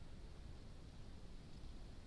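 Faint, steady hiss with a low rumble underneath and no distinct events: the background self-noise of a trail camera's microphone.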